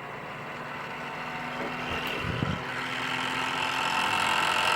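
Qidi X Plus 3 3D printer's print head being shaken by the Klipper input-shaper resonance test, which vibrates it to find its resonant frequencies: a steady mechanical buzz that grows louder.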